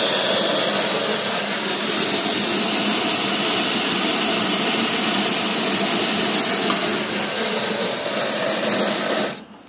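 Steam blower on a wood-fired fire-tube boiler: live steam jetting from the blower ring up the stack with a loud, steady hiss, forcing a strong draft through the fire. The hiss cuts off suddenly near the end.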